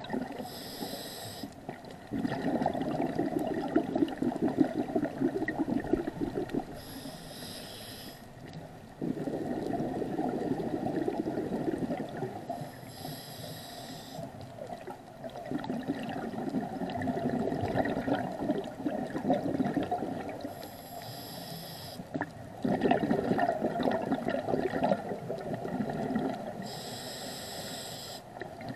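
A scuba diver breathing through a regulator underwater, five slow breaths: each a short hissing inhale followed by a few seconds of bubbling exhaust bubbles.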